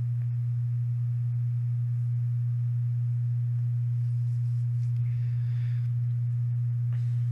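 A steady low electrical hum, one unchanging tone with nothing else of note.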